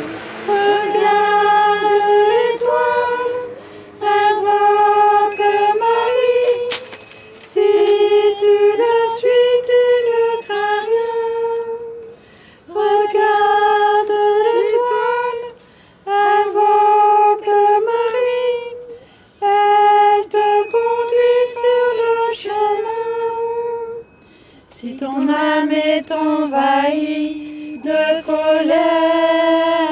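A woman's voice singing a slow hymn melody unaccompanied, in short phrases with brief pauses between them. The last phrase, near the end, sits lower in pitch.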